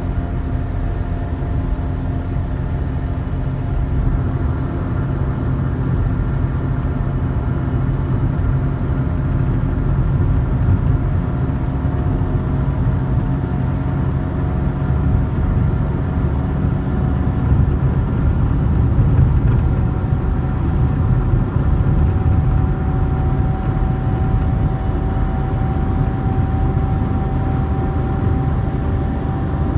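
Steady road and engine noise inside a car cruising at highway speed: a low tyre-and-engine rumble with a faint steady whine that creeps slowly up in pitch.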